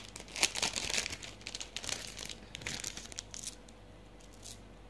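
Packaging crinkling and crackling as it is handled, a quick dense run of crackles that dies away about three and a half seconds in.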